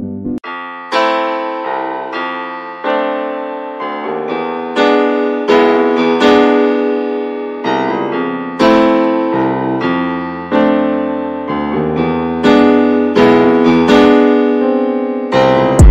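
Background piano music: notes and chords struck one after another, each ringing and fading, with a deep bass hit near the end.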